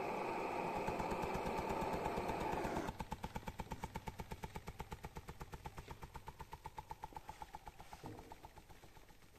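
Homemade free-piston hot air engine running, its piston beating in a rapid, even rhythm. A steady hiss covers the beats at first and cuts off suddenly about three seconds in. The beats then carry on alone, fading gradually.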